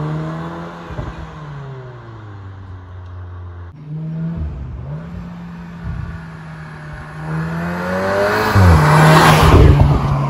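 Audi TTS's turbocharged 2.0-litre four-cylinder engine and exhaust under load as the car approaches. It grows steadily louder and sweeps past close by about nine seconds in, with a rush of tyre and wind noise, and its note drops in pitch as it goes by.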